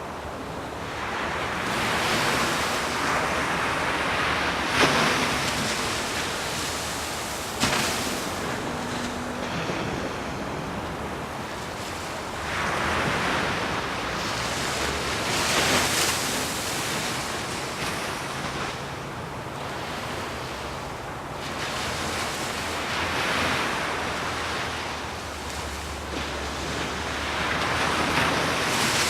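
Ocean surf: waves breaking and washing in, the rush swelling and fading in several slow surges. There are two brief sharp knocks about five and seven and a half seconds in.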